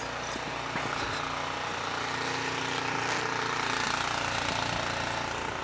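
Snowblower's small engine running steadily, a continuous drone that swells slightly in the middle.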